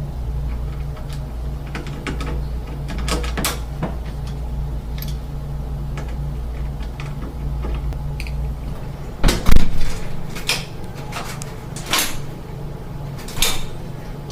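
Surface-mount door lock being worked: scattered sharp clicks and knocks of the key, cylinder and latch, with a loud knock about nine seconds in and a few more clicks after it.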